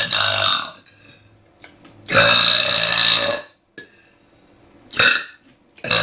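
A girl burping loudly, several times. One burp trails off at the start, a long drawn-out burp follows about two seconds in, a short one comes about five seconds in, and another begins near the end.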